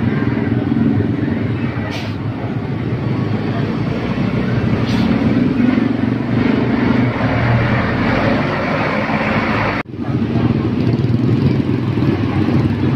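Tour bus engines running loud and steady as the buses go by on the road, with a brief break in the sound about ten seconds in.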